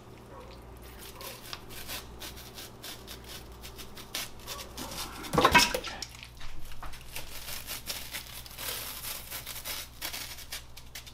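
Skin of a monkeyface prickleback being pulled off by hand on a wooden cutting board: a run of small wet crackles and tearing sounds, with one louder sound about halfway through.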